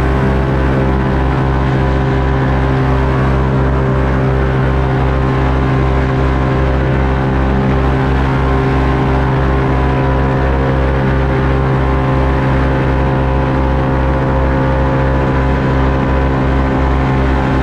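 TornadoAero airboat's engine and air propeller running steadily at an even speed, with a low regular pulsing under it.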